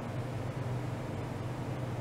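Steady low machine hum with an even hiss over it.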